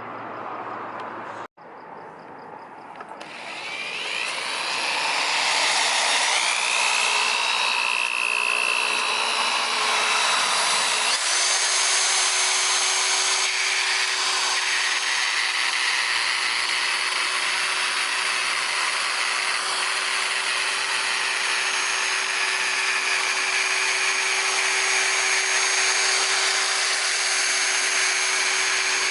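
Electric polisher with a wool pad compounding a wet-sanded car fender. The motor builds up over the first few seconds, then runs steadily, with its pitch settling slightly about ten seconds in.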